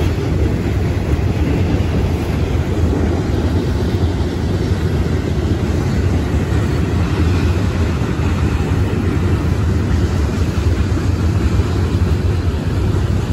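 Steady low rumble of a long freight train of loaded coal hoppers rolling across a low bridge.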